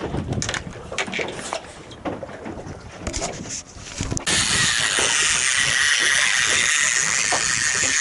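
Scattered clicks and knocks of fishing rod and reel handling on a boat, then, about four seconds in, a sudden switch to a steady loud hiss.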